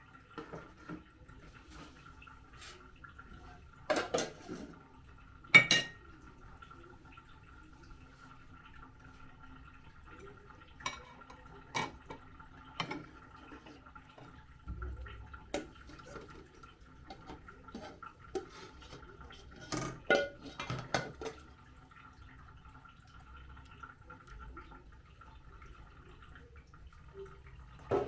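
Plates, pots and serving utensils clinking and knocking now and then as food is dished out, the sharpest clinks about four and five and a half seconds in and again around twenty seconds. A faint steady hum runs underneath.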